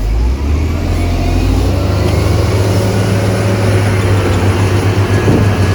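Heavy diesel engine of earthmoving equipment, a dump truck or bulldozer, picking up at the start and then running loud and steady under load.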